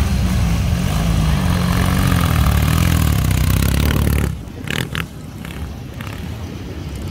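Motorcycle engine running loud, its revs rising and falling. About four seconds in, the sound drops abruptly to a quieter background with a couple of brief high tones.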